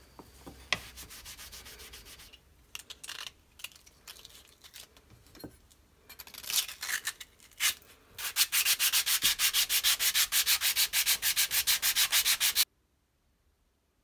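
Hand sanding of a rusty pocket knife's metal parts with abrasive paper, taking off rust. Scattered scraping strokes give way about eight seconds in to fast, even back-and-forth strokes, about ten a second, which stop abruptly near the end.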